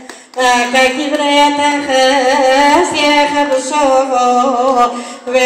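A woman singing solo into a microphone, her voice sliding through wavering, ornamented turns on long held notes; she takes a short breath about half a second in.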